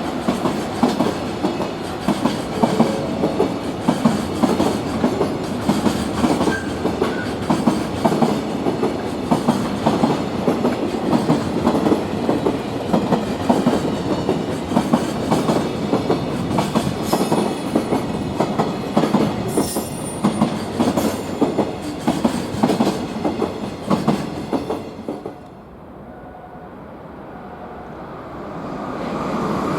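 Freight train wagons running past at speed, the wheels clacking rhythmically over rail joints, with a few brief high squeals partway through. The sound cuts off suddenly about 25 seconds in, leaving a quieter low rumble that grows again near the end.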